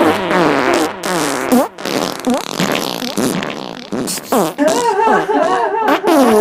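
A run of cartoon fart sound effects, pitch-shifted and warped, one after another, with wavering tones that slide up and down and a few abrupt cut-offs.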